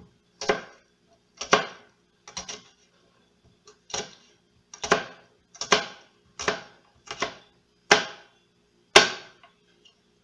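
Kitchen knife slicing serrano chiles into rings on a plastic cutting board: a sharp knock of the blade on the board with each cut, about a dozen irregular strokes roughly once a second, the last two the loudest.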